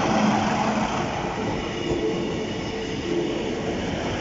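Two coupled British Rail Class 153 diesel railcars passing close by. Their Cummins underfloor diesel engines and their wheels on the rails run loud and steady.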